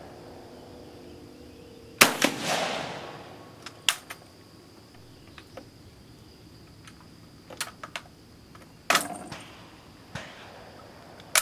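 A Vetterli 1870/87/15 rifle converted to 6.5mm Carcano, loaded with a reduced cast-bullet load, fires one shot about two seconds in, with a long echoing tail. Afterwards the stiff bolt is worked by hand in a string of metallic clicks and clacks, with a harder clack near the end.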